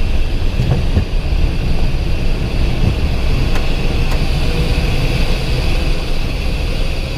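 Steady cockpit noise of a Cessna Citation XLS business jet in flight: a dense low rumble of engine and airflow with a steady higher hiss, and a faint steady tone later on.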